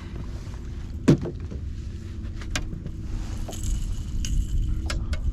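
Steady low rumble of wind and water around a boat, with one sharp knock about a second in and a few lighter clicks and taps later.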